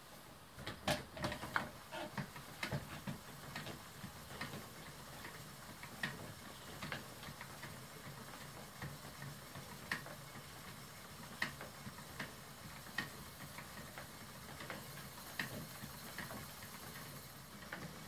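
Schacht Matchless spinning wheel with a jumbo flyer running while fibre is spun onto it: light irregular clicks and knocks from the wheel's moving parts over a faint steady low hum, the clicks coming more often in the first few seconds.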